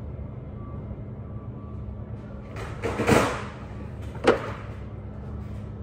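Steady low room hum, with a short rush of noise about halfway through and a single sharp knock about a second later.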